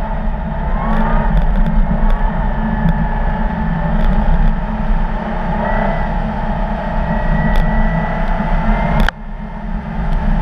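Audi car engine running under throttle on a snow-covered ice track, with a rumble of wind and tyre noise, the engine pitch rising and falling. A few sharp ticks about a second in and near the end, and about nine seconds in the sound drops suddenly.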